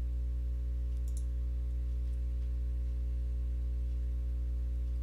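Steady low hum on the recording, with a quick double click of a computer mouse about a second in.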